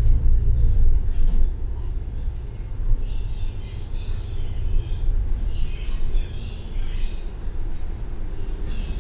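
Double-decker bus driving, heard from inside on the upper deck: steady low engine and road rumble, with a few brief rattles in the first couple of seconds.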